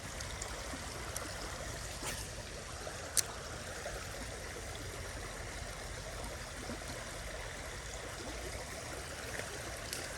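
Small creek water running quickly over a little spillway, a steady rushing trickle. A single sharp click about three seconds in.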